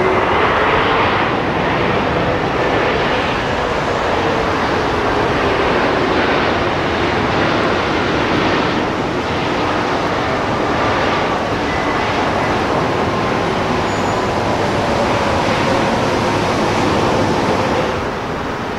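Airbus A321neo's twin turbofan engines running loud and steady as the airliner rolls along the runway, with a faint whine that slides in pitch; the level drops a little near the end.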